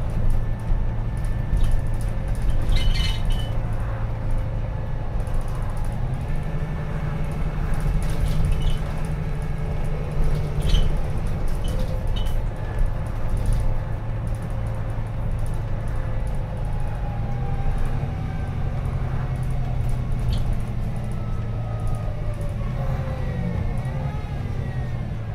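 Volvo B9TL double-decker bus on the move, heard from inside the lower deck: its engine drones steadily, the pitch stepping up and down now and then as it speeds up and changes gear. A few light clicks and rattles come through over it.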